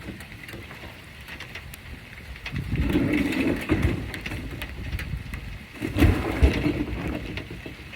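A refrigerator being loaded into a truck, with bumping and scraping that swell louder twice, about two and a half seconds in and again about six seconds in, over rain.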